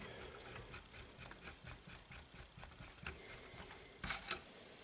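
Faint handling noise from small hand tools and parts: a run of light clicks and rubbing, a few a second, with a couple of sharper knocks about four seconds in.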